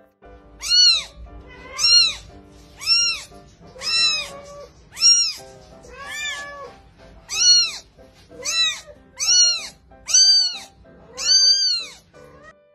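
Very young kitten mewing: eleven high, rising-then-falling cries about once a second, over background music.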